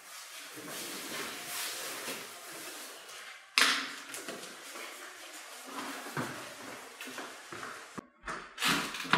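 Rustling of clothing and paper as a man gathers his things at a desk, with one sharp knock about three and a half seconds in and a few lighter knocks near the end.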